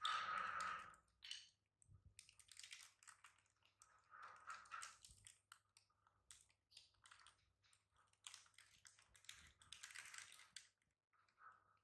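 Plastic snack packet crinkling and crackling as it is handled and tugged, quiet irregular clicks coming in a few clusters, loudest right at the start.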